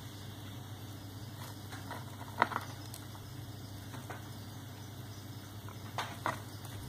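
Room tone with a steady low hum and a few soft clicks or taps: one about two and a half seconds in and two close together near the end.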